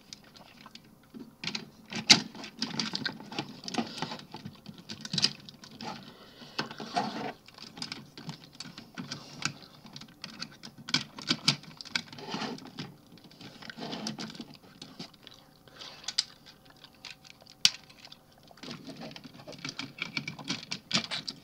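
Hard plastic parts of a Unite Warriors Computron combiner figure being handled and fitted together: irregular clicks, rattles and scrapes, with a few sharper snaps as pieces lock into place.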